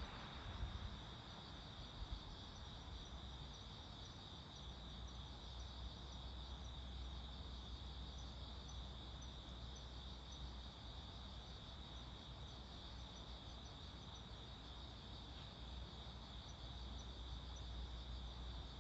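Crickets chirring in a steady, unbroken high trill, faint, with a low rumble underneath.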